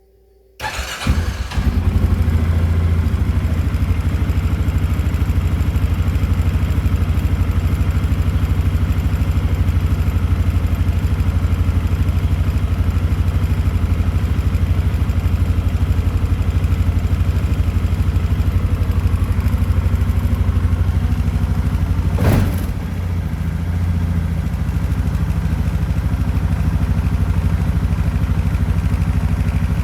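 Kymco MXU550i ATV's single-cylinder engine started up and idling steadily after a brief crank, with a single click or knock about three quarters of the way through.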